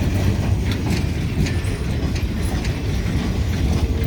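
Freight train log cars rolling past at close range: a steady heavy rumble of wheels on rail with a few irregular clacks over the rail joints.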